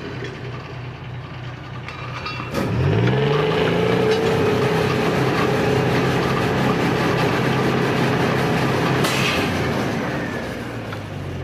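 Workover rig's engine running steadily. About two and a half seconds in, a sharp click comes and the engine revs up, rising in pitch, and holds at higher speed, loud and steady. Near the end it eases back down to a lower speed, with a short burst of hiss around nine seconds in.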